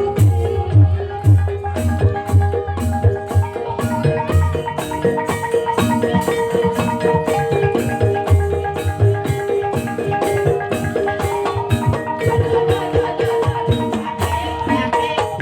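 Banyumasan gamelan music accompanying an ebeg dance: mallet-struck keyed instruments play repeating melodic patterns over a drum, with a steady, quick beat.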